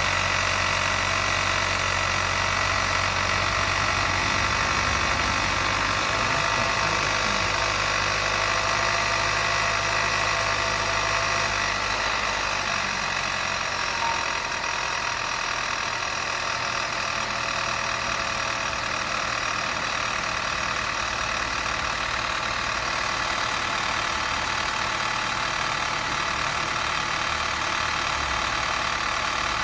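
Subaru Outback BT5's CB18 1.8-litre turbocharged flat-four running steadily with an abnormal engine noise, a layered high-pitched whine over the running sound. The low rumble drops back about twelve seconds in.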